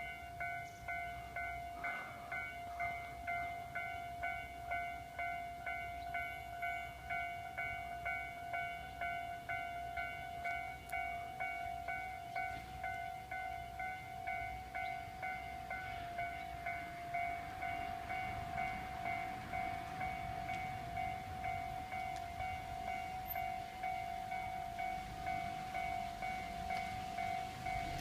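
Japanese railway level-crossing warning bell ringing in a steady, evenly repeated electronic ding. From about halfway the rumble of an approaching train builds underneath.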